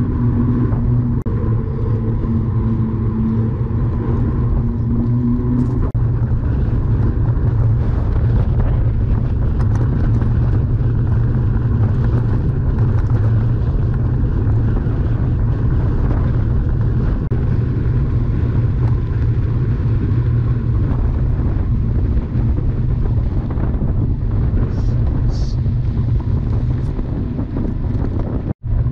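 Steady low rumble of travel noise with wind buffeting the microphone. A pitched hum sounds over it for about the first six seconds, and the sound cuts out for an instant near the end.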